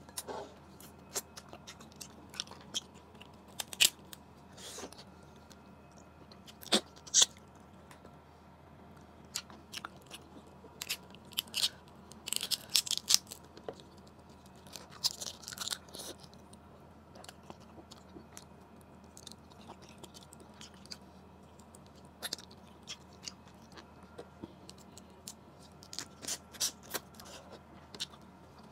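Cooked blue crab shell being cracked and picked apart by hand close to the microphone, giving sharp, irregular cracks and crackles, between bouts of chewing crab meat. The crackling comes in its densest runs around the middle.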